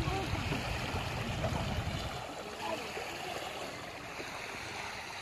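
Small waves on a river lapping at a pebbly bank, a steady wash of water noise. Faint distant voices can be heard in the first couple of seconds.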